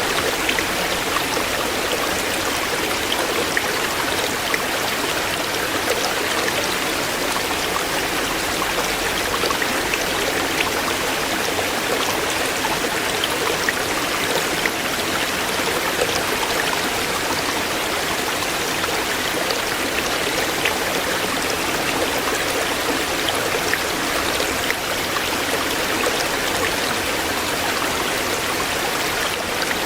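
A shallow stream flowing over stones, a steady rush of water full of small splashes and trickles.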